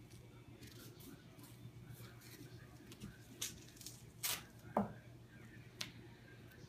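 Athletic tape being pulled off the roll and wrapped around an ankle: faint, short ripping and crinkling sounds about once a second, the loudest a brief one with a falling pitch a little before five seconds in.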